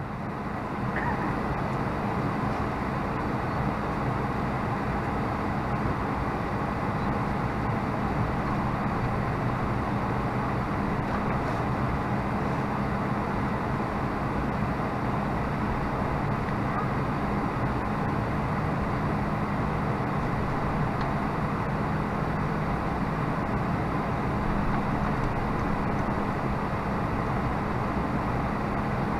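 Steady cabin noise inside an Airbus A320 as it moves back from the gate: an even rush of air and machinery with a low hum and a faint high whine, no change in level throughout.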